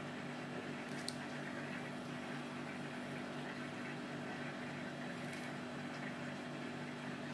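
Steady low hum of room or equipment noise, with one faint tick about a second in.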